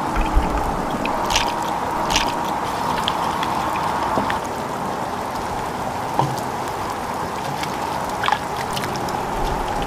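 Kitchen prep sounds: cream being poured, then whisked in a bowl, and liquid sloshing into a cast-iron pot, with scattered light clicks over a steady hum.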